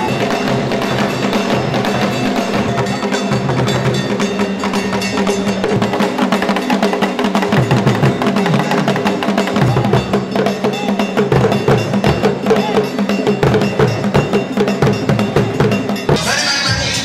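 Ashanti traditional drum ensemble playing a dense, steady dance rhythm on hand drums and percussion.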